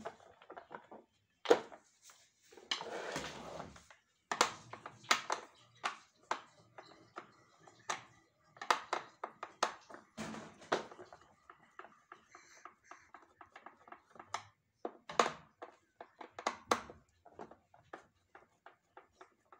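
Irregular clicks and knocks of the hard plastic housing of a Samsung canister vacuum cleaner being handled and a screwdriver working its screws, with a short scrape about three seconds in and a run of small quick ticks near the end.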